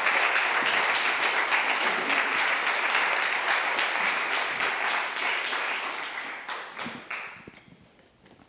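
Audience applauding, many hands clapping together, steady at first and then dying away over the last two seconds.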